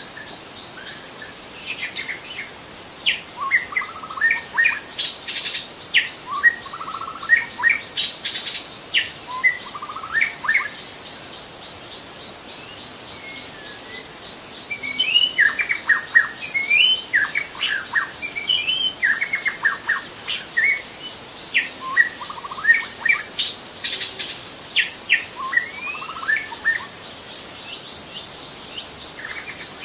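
White-rumped shama singing in two long bouts of quick, varied whistled phrases and sharp notes, with a pause of a few seconds between them. A steady high-pitched insect drone runs beneath.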